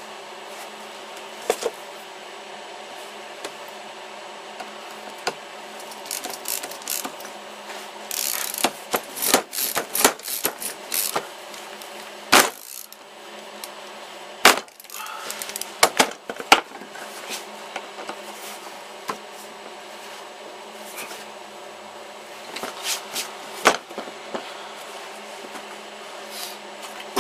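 Bradawl being pressed and twisted into a stack of wooden boards to start a pilot hole for a screw, giving clusters of sharp crackling clicks and short scrapes.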